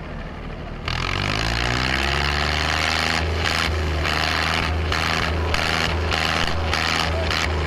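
Diesel tractor engines opened up to full throttle about a second in, their pitch rising and then holding flat out under heavy pulling load, with a rapid uneven surging in the exhaust.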